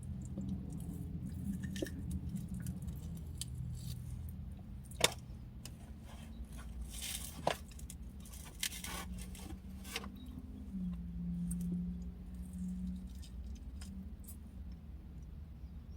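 Eating sounds: a utensil clicking and scraping against a dish of leftover food, with a few sharp clinks, a short rustle and chewing between them.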